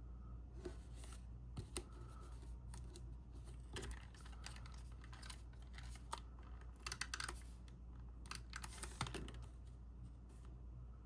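Cardstock pop-up pieces being handled, folded and pressed into place: scattered small clicks and paper rustles in short clusters.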